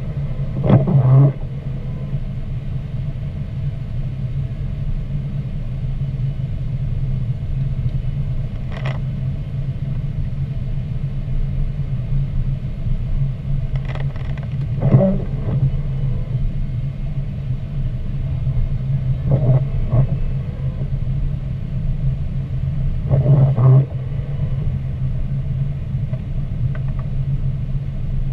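A car driving on a wet, slushy road, heard from inside the cabin: a steady low rumble of engine and tyre noise, with a few brief clicks and squeaks now and then.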